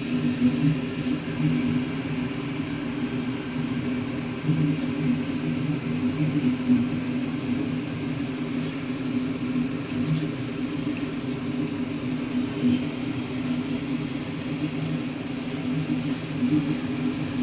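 Steady low motor hum, with one short click about eight and a half seconds in.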